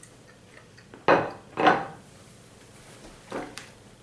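A plate being set down and handled on a wooden table: two loud knocks about half a second apart, then two lighter knocks near the end.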